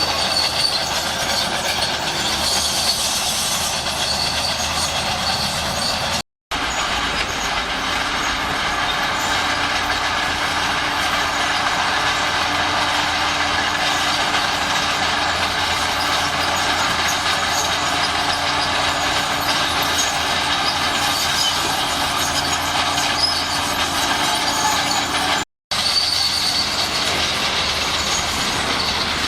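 Shantui SD16 crawler bulldozer at work: its diesel engine running steadily with the clatter and grind of its steel tracks. The sound cuts out for a moment twice.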